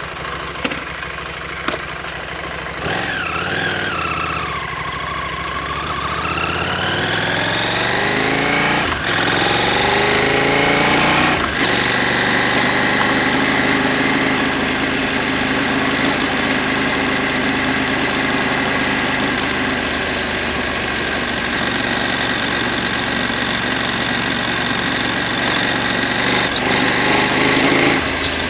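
KTM 790 Adventure's parallel-twin engine pulling the bike along: its pitch climbs steadily for several seconds, dips briefly about 9 seconds in, then holds at a steady cruise.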